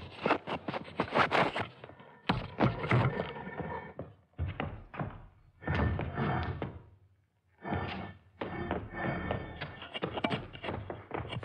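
Irregular series of thuds, knocks and clatters as a metal microphone stand is wrestled with and dragged across a wooden stage, with a brief pause about seven seconds in.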